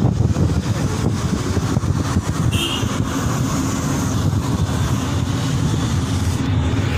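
Steady rumble of a moving car, wind buffeting the microphone along with road noise.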